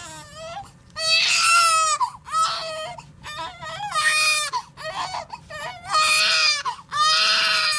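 Newborn baby crying in repeated high wails, each about half a second to a second long, with short breaks between them. It cries as it is being washed.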